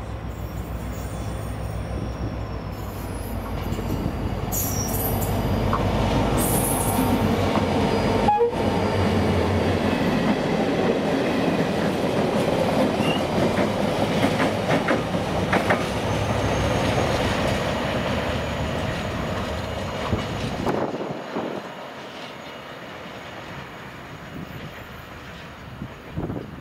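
Irish Rail 071 Class diesel-electric locomotive, powered by an EMD 12-645 engine, approaching with a low engine drone that grows louder, then passing with the Sperry rail-testing train's wagons: wheels clattering over rail joints with some thin wheel squeal. The sound drops off sharply about two-thirds of the way through as the train moves away.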